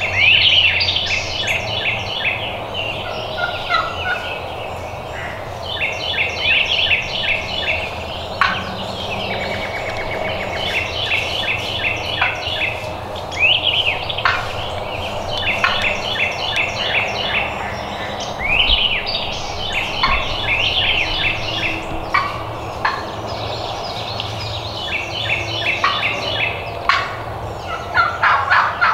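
Wild turkey gobbler gobbling again and again, a rattling gobble every few seconds.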